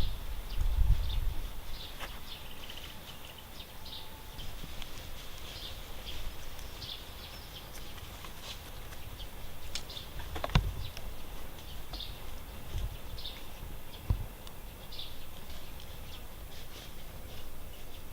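Small birds chirping in short, repeated calls, with a few dull knocks and one sharp click about ten and a half seconds in.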